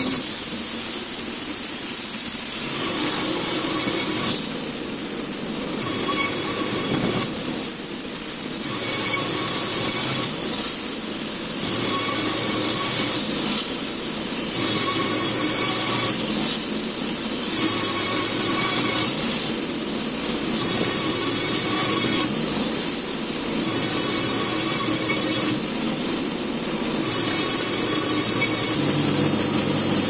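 Electric Wood-Mizer LT70 band sawmill running and cutting boards, a hissing machine noise that swells and eases in a regular cycle about every three seconds as the sped-up footage runs through pass after pass.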